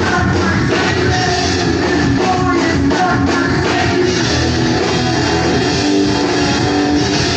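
Punk rock band playing live and loud: electric guitars, bass guitar and drums driving on without a break.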